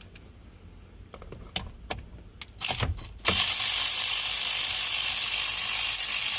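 A few clicks as a 10 mm socket is fitted onto an airbag bolt at the side of a steering wheel, then, about three seconds in, a power tool starts and runs steadily, backing the bolt out.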